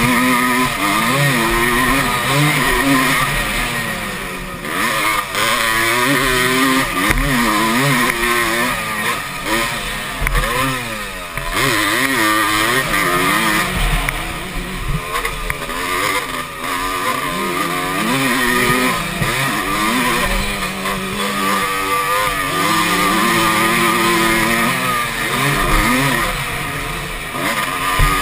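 Motocross dirt bike engine at race pace, heard from the rider's seat. The pitch climbs and drops over and over as the rider accelerates, shifts and rolls off the throttle.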